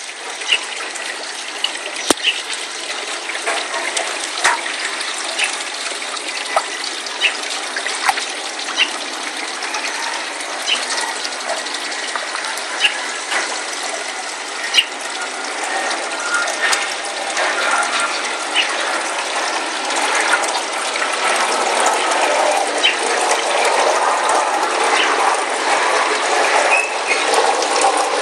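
Pond water splashing and gushing as koi feed at the surface, with scattered sharp clicks and pops. The sound grows louder and busier about halfway through.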